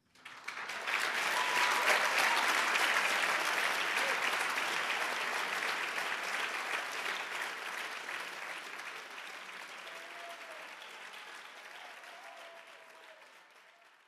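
Audience applauding after a speech, swelling within the first second and then dying away gradually toward the end.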